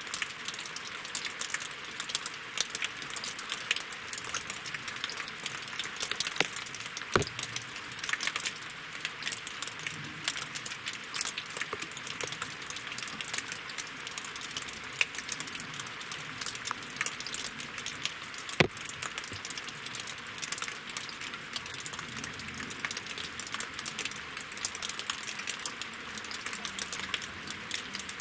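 Steady rain pattering on water and on wooden logs, a dense patter of small drop ticks with a few heavier, louder drops striking now and then.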